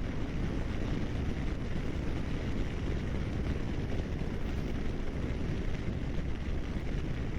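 Steady wind rush and road noise from a motorcycle under way, with its engine running beneath.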